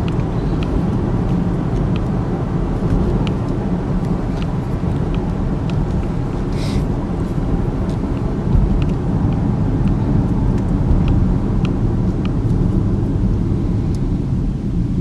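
Steady low road and tyre noise inside the cabin of a 2013 Chevy Equinox cruising down a straight road, nice and quiet, with faint ticks now and then and a brief hiss about seven seconds in.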